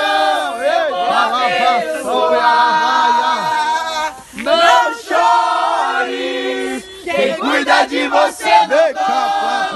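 Several voices praying aloud at once in fervent Pentecostal-style prayer, calling out and chanting with long, wavering held notes and no intelligible words, as in speaking in tongues.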